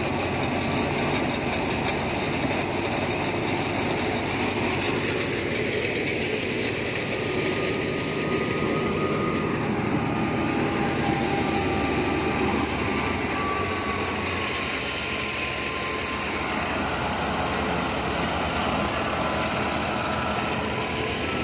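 Tractor-driven wheat thresher running steadily, fed bundles of cut wheat, with the tractor engine turning it through a PTO shaft and V-belts.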